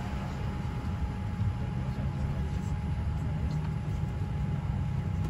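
Cabin noise inside a Boeing 787-10 taxiing: a steady low rumble from the engines and airframe, with a faint steady whine above it.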